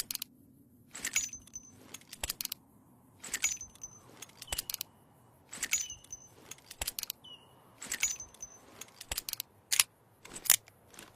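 Colt Navy revolver's action clicking: four clusters of sharp metallic clicks with a short ring, about two seconds apart, then two single sharper clicks near the end.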